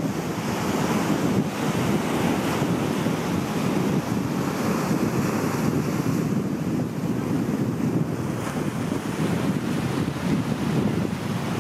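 Ocean surf breaking and washing over a low rocky reef, a steady rushing wash, with wind buffeting the microphone.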